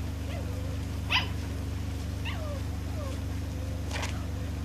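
A dog giving two short, sharp barks about three seconds apart, with a couple of brief whines falling in pitch between them, over a steady low hum.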